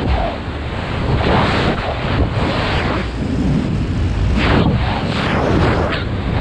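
Freefall wind rushing over the camera's microphone, loud and buffeting, swelling and dipping every second or so.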